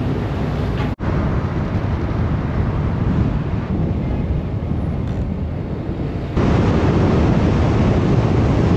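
Wind buffeting the microphone over a steady low rumble. The sound drops out for an instant about a second in and gets louder about six seconds in.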